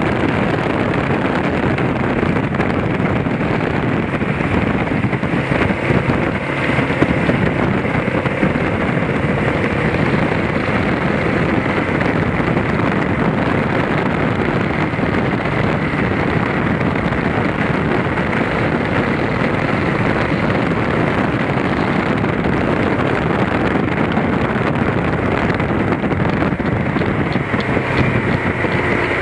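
BMW F650GS motorcycle riding at steady road speed, heard from a camera mounted low on the bike: a constant rush of wind on the microphone over the engine and tyre noise.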